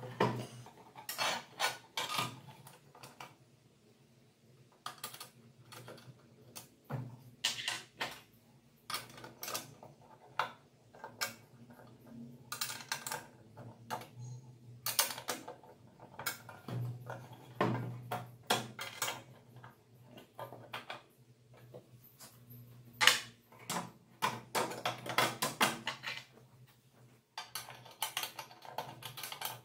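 Irregular clicks and clinks of small steel parts (bolt, square nut and Allen key) being handled and fitted into the clamp of an angle grinder stand, with occasional knocks against the stand's base, over a low steady hum.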